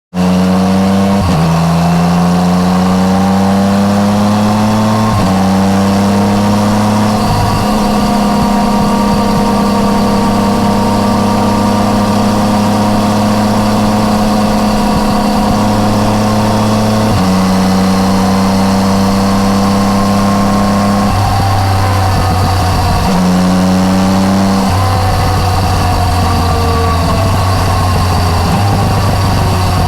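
Yamaha MT-09 Tracer's three-cylinder engine through an Akrapovič exhaust, ridden under way. The engine note rises with speed and drops sharply at each of several gear changes, then holds steady cruising revs for stretches.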